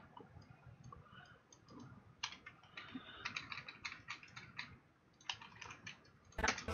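Irregular clicks of a computer keyboard and mouse, with a quick run of keystrokes about three seconds in. Playback of a rock song starts loudly right at the end.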